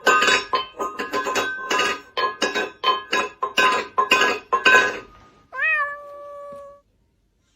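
A rapid run of short, sharp sounds, about three a second, for about five seconds, then a single long cat meow that rises briefly and holds level for about a second.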